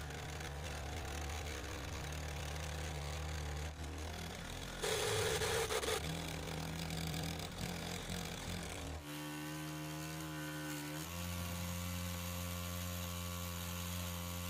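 Small electric motor running steadily in a homemade mini generator that is lighting an LED panel: a low, even hum. There is a brief louder rattle about five seconds in, and the hum changes tone around nine seconds in.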